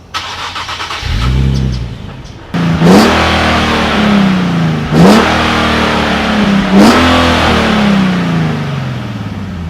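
Nissan 370Z Nismo's V6 being revved three times, each rev climbing sharply and then falling away slowly, after a quieter first couple of seconds.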